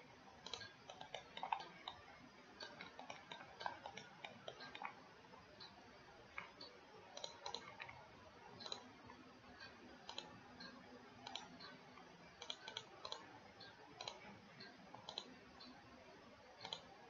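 Faint, irregular clicks of a computer mouse, a dozen or more scattered through the stretch.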